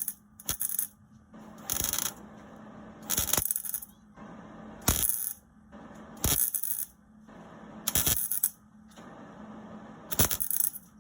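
Electric welder striking an arc in seven short bursts of crackle, each about half a second long: tack welds being laid on the metal, with a faint steady hum between them.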